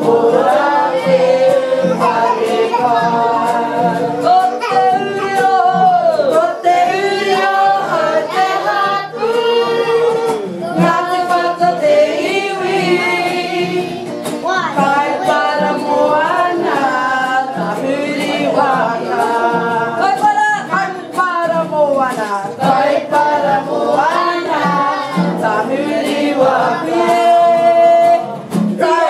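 A group of adults and children singing a Māori action song (waiata-ā-ringa) together, accompanied by a strummed acoustic guitar.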